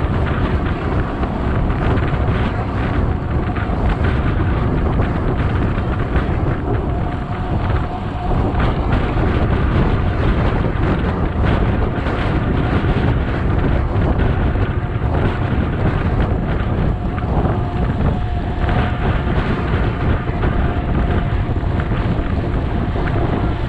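Wind rushing and rumbling over the microphone of a mountain bike's action camera at riding speed on asphalt, mixed with the rolling of the bikes' tyres on the tarmac. A faint steady hum drifts in and out.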